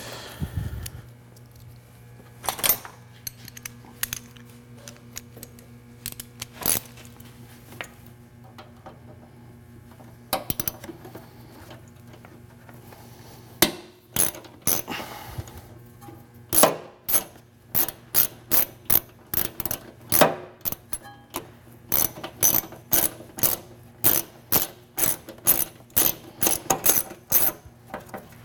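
Ratchet wrench backing out a fender bolt inside the wheel well: a few scattered clicks and knocks, then from about halfway an even run of ratchet clicks, about two strokes a second.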